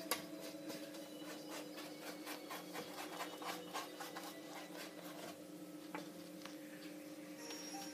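Quick, rhythmic rubbing strokes, a few a second, as olive oil is spread over a sheet of homemade phyllo pastry lining a metal pie pan.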